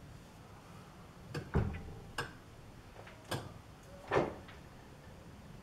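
Metal clicks and knocks from a four-jaw lathe chuck being turned by hand and the part in its jaws being adjusted to run true, about six in all, the loudest about four seconds in.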